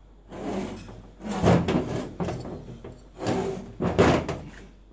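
Stripped Victa Powertorque engine block being turned over and shifted on a steel-topped workbench: three bursts of metal scraping and knocking against metal.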